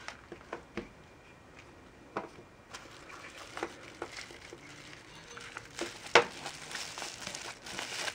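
Knife packaging being handled and opened: crinkling and rustling with scattered clicks, the loudest a sharp click about six seconds in.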